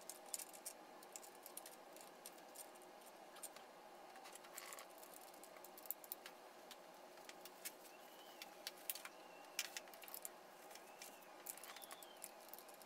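Faint, irregular metallic clicks and light taps as head bolts are handled and set into the bolt holes of a BMW 325i cylinder head.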